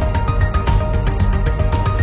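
Background music with a steady, quick beat, a strong bass line and a simple melody of short held notes.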